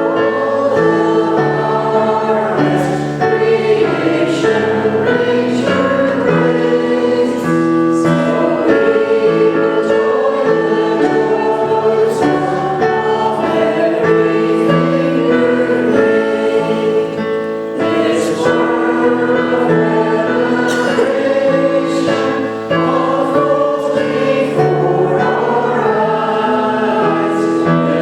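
Church congregation singing a harvest hymn, many voices together in chords that change note by note.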